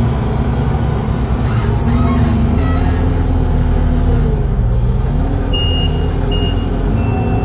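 A steady, loud, low motor drone whose pitch wavers slightly, with a few short high chirps near the end.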